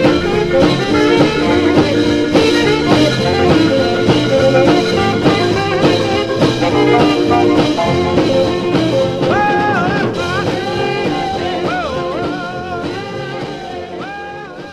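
Background music with a steady beat, a sliding melody line coming in about two-thirds of the way through, fading out near the end.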